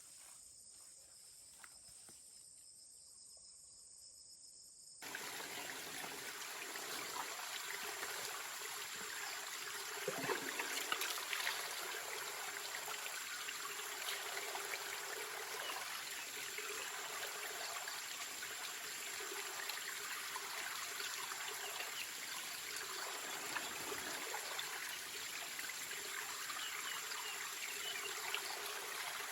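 Outdoor nature ambience: insects chirping with a steady high tone over an even hiss. It starts abruptly about five seconds in, after a faint, quiet stretch.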